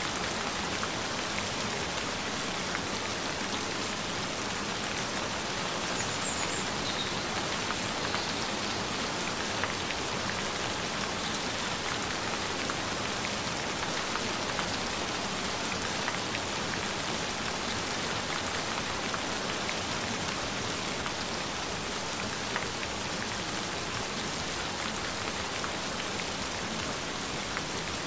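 Gentle rain falling steadily: an even hiss with scattered faint drop taps.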